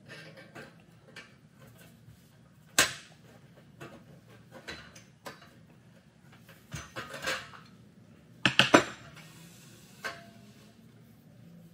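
Pliers and stainless steel U-bolts clinking and knocking against an aluminum cart frame and axle as the U-bolts are pinched and worked down through the frame holes. Scattered sharp metal clacks, with one loud clack about three seconds in and a quick run of three or four near the end.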